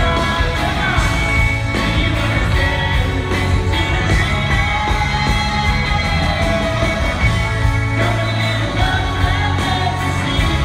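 A rock band playing live, with electric guitars, drums and a lead singer, heard from within the audience in a large hall.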